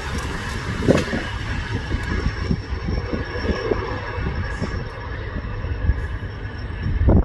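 Passenger train coaches running on the rails at speed: a continuous rumble of wheels with irregular knocks, and a thin, steady, high-pitched wheel squeal joining about two seconds in.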